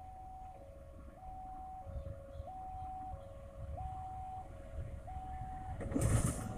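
Two-tone electronic railway crossing warning alarm, alternating between a lower and a higher tone about every two-thirds of a second. Under it, the low rumble of an approaching diesel locomotive hauling a passenger train grows louder. About six seconds in, a loud rush of noise sets in as the locomotive reaches the camera.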